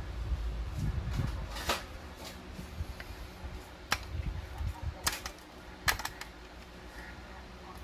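A diecast toy Hummer H2 model handled in the hands: about four sharp clicks and taps from its small plastic and metal parts, spread out over a low rumble of handling.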